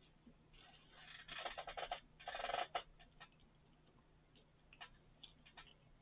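Faint crunching of a mouthful of candy-coated chocolates being chewed: a dense crackle about one to three seconds in, then a few light clicks.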